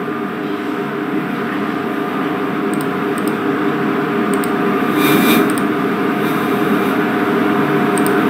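Steady machine hum and hiss of equipment in a small room, slowly growing louder, with a few faint clicks and a brief louder rush about five seconds in.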